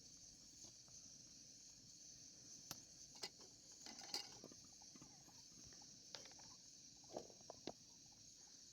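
Near silence: a faint steady high hiss with a few scattered soft clicks and knocks, the clearest about three and four seconds in and two more near the end.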